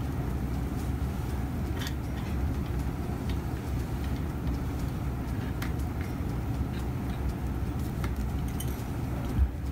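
A steady low rumble of background room noise, with a few faint metallic clicks as a steel surgical cutter is worked down an implant's tail in an access tube, and one louder knock near the end.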